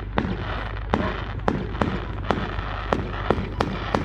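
Fireworks going off: a steady run of sharp bangs, about two to three a second, over continuous crackling.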